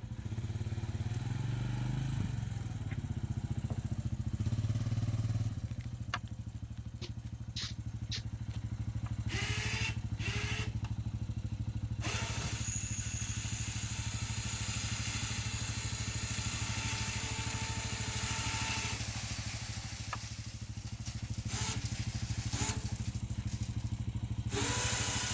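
Honda ATV engine running steadily under light load, with a few light clicks partway through.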